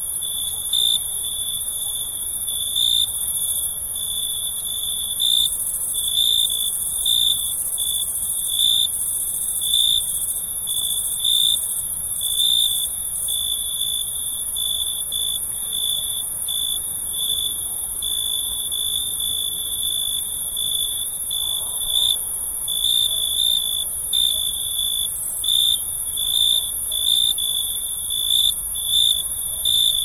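Night chorus of crickets: a steady, high-pitched trill with louder chirps about once a second, over a continuous higher-pitched shrilling.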